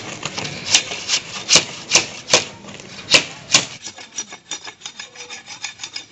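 Cutter blade scraping the skin off split green bamboo: sharp scraping strokes about every half second, then from about four seconds in a run of quicker, lighter scrapes.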